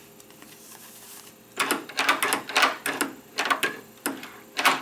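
Metal lever handle and latch of a hotel room door's electronic RFID lock being worked by hand: a run of irregular, sharp clacks and rattles starting about a second and a half in.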